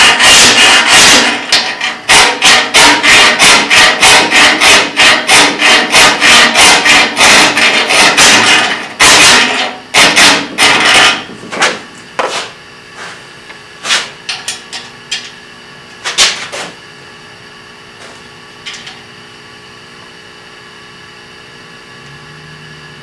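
Hand tool working a metal fitting: a long run of quick, even strokes, about three or four a second, then a few scattered strokes and knocks that stop well before the end.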